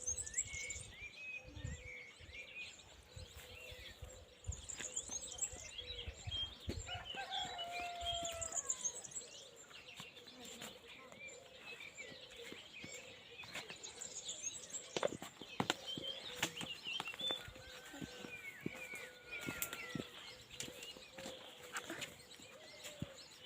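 Rural outdoor ambience: birds chirping and twittering in short high calls throughout, with scattered clicks and knocks.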